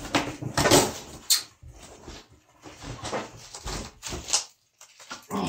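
A bubble-wrapped package being pulled out of a cardboard shipping box and handled: irregular rustling and scraping with several knocks and bumps.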